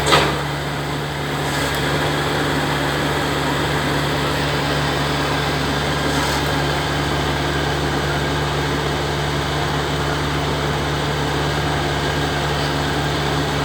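Motor-driven rice threshing machine (mesin combet) running at a steady speed with an even hum. There is one sharp knock right at the start.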